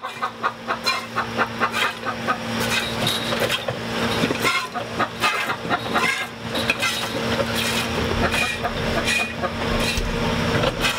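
A hen cackling her egg song, the call that announces a freshly laid egg, as short repeated clucks over a steady low hum.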